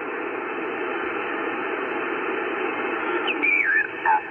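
Band noise hissing from an Icom IC-7300 HF transceiver's speaker in upper sideband on 20 meters. About three seconds in, the tuning knob is turned and a sideband signal sweeps through the passband as warbling whistles that fall in pitch.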